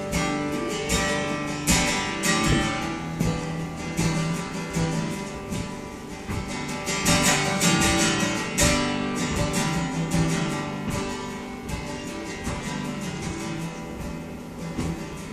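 Unamplified acoustic guitar strummed in a steady rhythm, playing a song's opening chords before the singing begins; it grows softer over the last few seconds.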